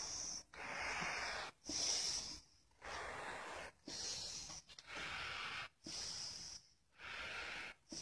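A person breathing heavily and steadily into a face mask close to the microphone: a short hissing in-breath followed by a longer out-breath, about every two seconds.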